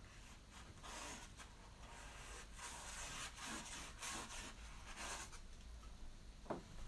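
Paintbrush working oil paint: soft, scratchy brushing in several spells, with a short tap near the end.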